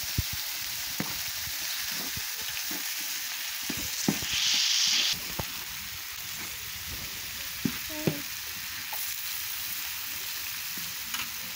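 Beef sizzling on a steel barrel-stove griddle, with metal tongs clicking and scraping against the plate as the meat is stirred. The sizzle swells louder for about a second, around four seconds in.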